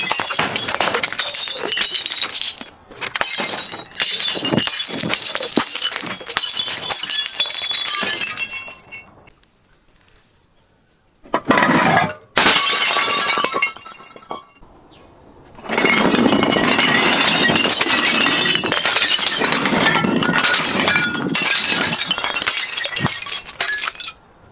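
Glass bottles being broken and crushed: dense crunching and clinking of glass in two long spells, with a short sharp burst of breaking between them about halfway through.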